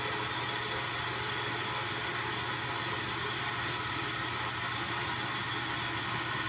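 Steady low hum with hiss of a ventilation fan running, even throughout.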